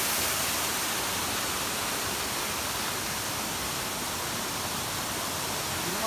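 Steady rush of a waterfall, a little fainter in the middle.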